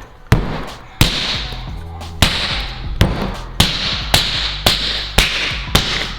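Toy Slammer Hammer striking slime-filled Pop Pops Snotz balls again and again, about ten sharp blows roughly every half second, each followed by a brief hiss. Background music with a steady low beat plays underneath.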